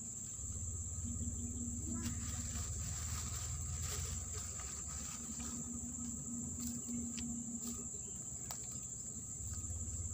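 Steady high-pitched insect chorus, with a low rumble underneath and a few faint clicks.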